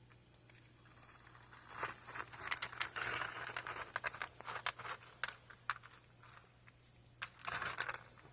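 Plastic packaging crinkling and rustling in irregular bursts with sharp crackles, busiest from about two to six seconds in and again briefly near the end, as it is handled to get food out.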